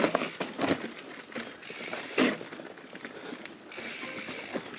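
Mountain bike ridden through a rock garden: ratcheting clicks from the rear hub and drivetrain, and the wheels knocking over rocks, with one sharper knock about two seconds in.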